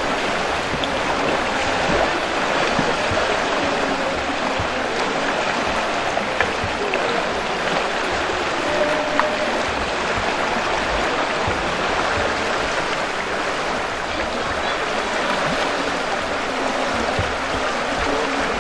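Fast river water rushing steadily through a whitewater slalom course.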